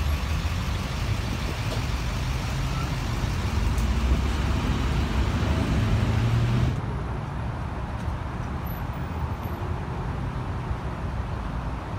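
Steady vehicle and road-traffic noise with a low rumble; the hiss above it drops off suddenly a little past halfway.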